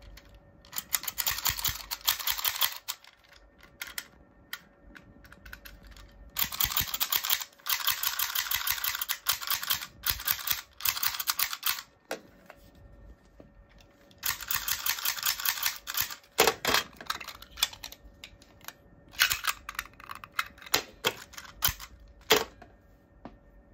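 Plastic carrot knife and carrot gun toys being worked by hand: bursts of rapid plastic clicking and ratcheting lasting a few seconds each, with a few single sharp clicks in between and near the end.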